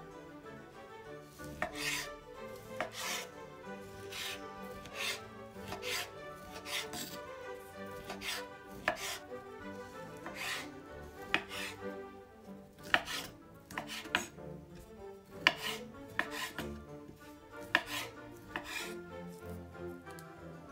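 Kitchen knife cutting through peeled orange and knocking on a wooden cutting board in sharp clicks about once a second, over soft background music.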